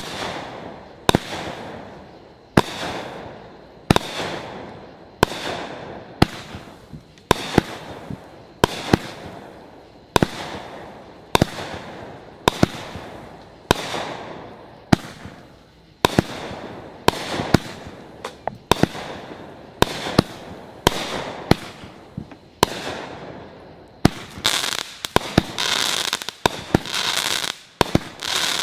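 Brothers Pyrotechnics Vega 48-shot firework cake firing shot after shot, a sharp bang about every second and a quarter, each fading out over about a second as the mine and burst spread. In the last few seconds the shots come faster, with rapid popping.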